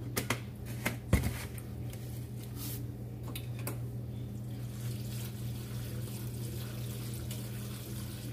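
Kitchen cooking sounds: a few clicks and a sharp knock about a second in as a jar is handled over the pot, then soft, wet stirring in a pot of noodles and meat, over a steady low hum.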